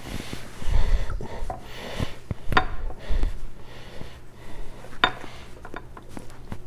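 Scraping and knocking of steel and stone at a whetstone sharpening setup, with two sharp clicks about two and a half and five seconds in, and a few dull thuds.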